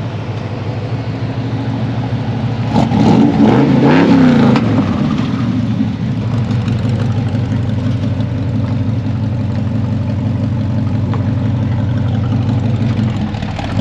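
1972 Chevy C20 pickup's engine running as the truck drives, revving up for about two seconds a few seconds in, then settling back to a steady drone.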